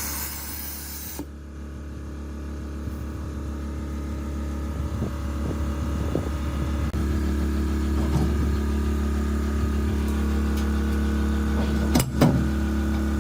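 Steady mechanical hum with a low drone and several steady tones above it, with a hissing rush in the first second and a couple of sharp clicks near the end.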